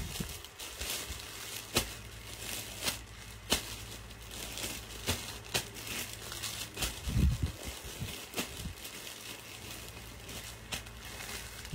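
Plastic clothing packaging crinkling now and then, with scattered light clicks, and a dull low thump about seven seconds in.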